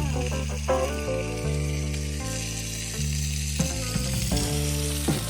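Beef burgers sizzling as they fry in a pan, a steady crackling hiss with a few sharp pops. Background music with a low bass line stepping from note to note plays along with it.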